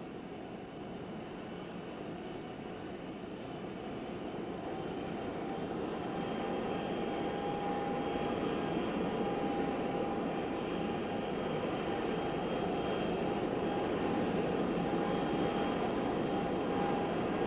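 The Avrocar's turbojet engines and central turbo-rotor running: a steady rushing jet noise with a high whine. It grows louder over the first several seconds, with the whine rising slightly about four seconds in, then holds steady.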